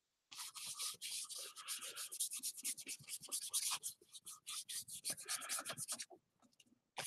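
Paintbrush scrubbing paint onto a mixed-media journal page in a rapid run of short back-and-forth strokes, stopping about a second before the end.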